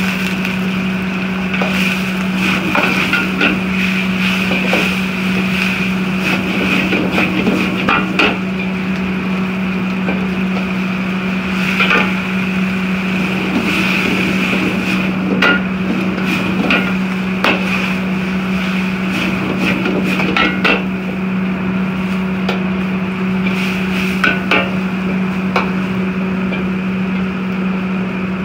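A metal ladle scraping and knocking against a steel wok as noodles and vegetables are stir-fried, with irregular clanks every few seconds over the steady hum of a gas wok range.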